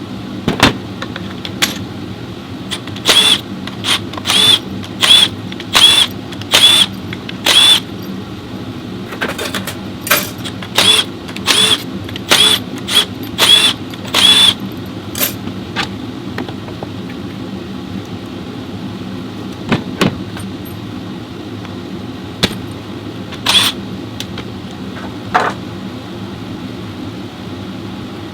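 Workshop hand-tool work on an automatic transmission during teardown: two runs of short, sharp metallic sounds with a ringing edge, one every half-second or so, then a few single ones, over a steady low hum.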